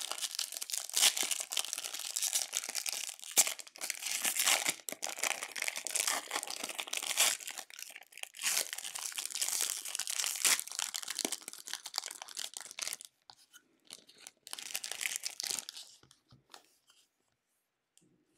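Foil wrapper of a hockey-card pack being torn open and crumpled by hand, a dense crinkling and tearing that goes on for about thirteen seconds. A few shorter crinkles follow before it goes quiet near the end.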